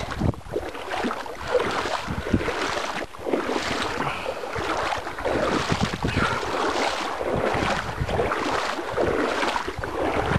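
Legs wading through shallow lake water, a swishing splash with each stride, about one stride every second or less.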